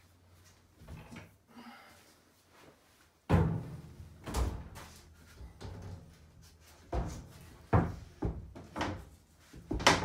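A rigid composite tub-surround wall panel being set against the wall studs: a loud thud about three seconds in, then several more knocks and bumps as it is pushed and shifted into place.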